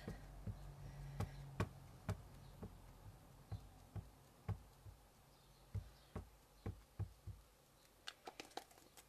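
Stamp mounted on an acrylic block being tapped repeatedly onto an ink pad to ink it up: soft, uneven taps about one or two a second, with a quicker run of taps near the end.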